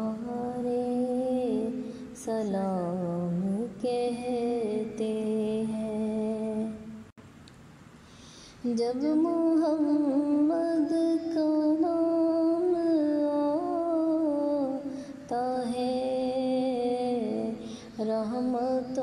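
A woman's voice humming and singing a naat melody without clear words, in long, wavering held notes, with a short pause about seven seconds in.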